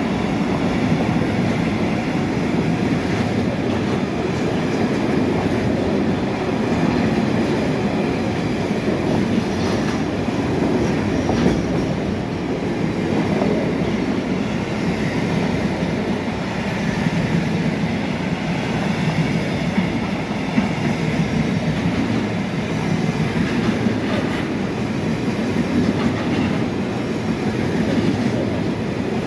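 Freight train wagons rolling past at steady speed: a continuous rumble of steel wheels on the rails, with occasional sharp clicks over rail joints.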